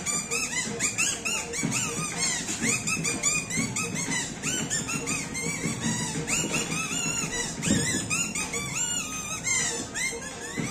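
Kathputli puppeteer's reed mouth-whistle (boli) giving a puppet its voice: a rapid run of short, high, arching squeaks, like chattering speech.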